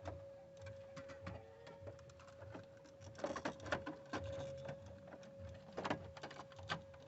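Faint scattered clicks and taps of hands handling and pressing a car stereo head unit, with a faint steady hum underneath.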